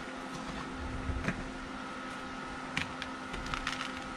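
Hands pressing potting soil down around a fig cutting in a plastic nursery pot: a few short soft crunches and taps, about a second in and again near the end, over a steady background hum.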